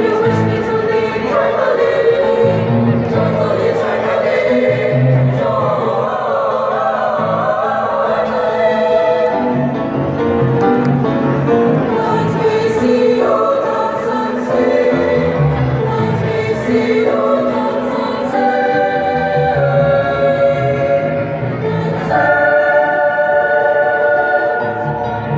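Choral music: voices singing long held chords that change every few seconds, over low sustained tones, playing as a concert intro in a large arena.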